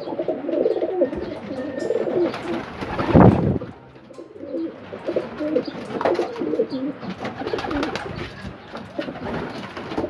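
Racing pigeons cooing in a loft, many overlapping short calls. A brief louder noise breaks in about three seconds in, and a smaller one near six seconds.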